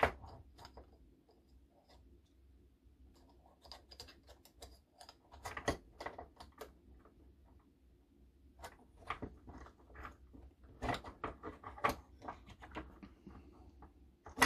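Irregular light clicks and taps of small RC truck gearbox parts being handled and worked into place by hand, coming in loose clusters.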